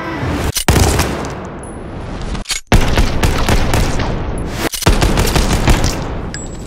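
Automatic gunfire in three long, sustained bursts with short breaks between them, the first starting about a second in.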